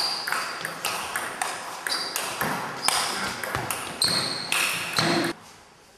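Table tennis rally: the ball clicks back and forth off bats and table in quick succession, each hit with a short high ping. A voice calls out near the end, and the sound drops away suddenly a little after five seconds in.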